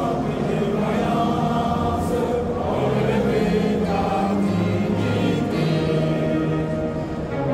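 Music with a choir singing in long, held notes.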